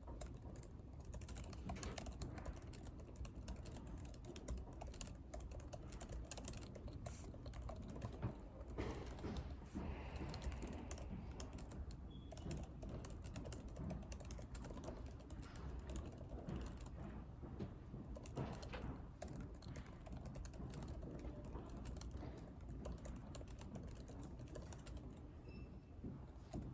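Computer keyboard typing: a steady run of irregular key clicks, with a low, steady room hum underneath.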